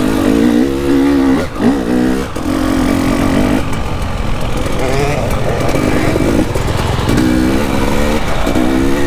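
KTM 300 EXC two-stroke dirt bike engine being ridden hard on a trail, the revs rising and falling in short bursts as the throttle is opened and shut, with a quieter stretch of lighter throttle in the middle.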